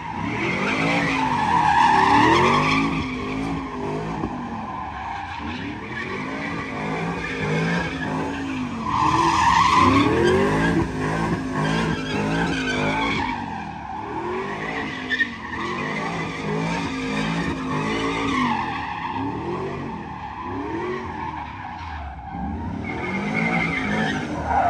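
Pickup truck doing donuts: its engine revs up and down over and over, about once a second, while the rear tyres squeal and screech on the pavement, loudest about two seconds and ten seconds in.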